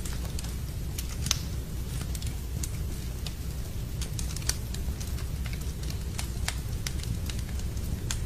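Wood fire crackling in a fireplace: irregular sharp pops and snaps, the loudest about a second in and again around four and a half seconds, over a steady low rushing background.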